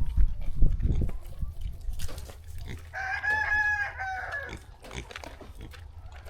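A rooster crowing once, a drawn-out call about a second and a half long starting near the middle. Low rumbling noises are heard in the first second.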